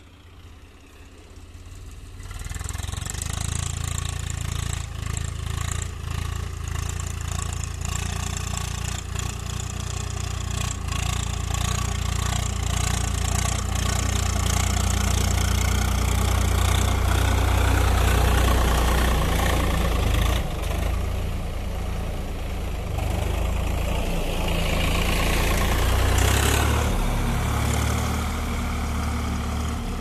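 Swaraj 855 FE tractor's three-cylinder diesel engine running under load as the tractor drags a rear blade through loose soil. It comes up loud about two seconds in and stays steady, swelling briefly near the end.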